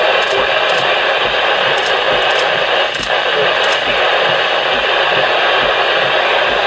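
Loud steady hiss of noise, with faint sharp ticks scattered through the first four seconds.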